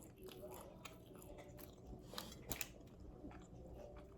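Close-up chewing and biting of an extra-crispy fried chicken wing, faint, with two sharper crunches a little past the middle.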